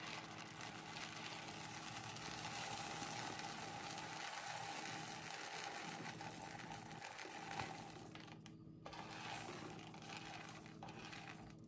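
Frozen elderberries pouring out of a plastic bowl into a gallon Ziploc bag: a steady rattling patter of small hard berries sliding and dropping onto the plastic. It thins out briefly a little over two-thirds of the way through.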